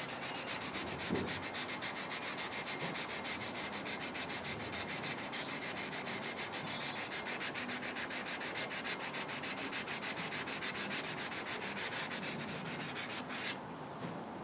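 400-grit wet-and-dry paper rubbed dry, by hand, up and down the steel edge of a Hanwei Tinker Viking sword in quick, even strokes, several a second, refining the freshly sharpened edge and blending in its bevel. The rubbing stops near the end.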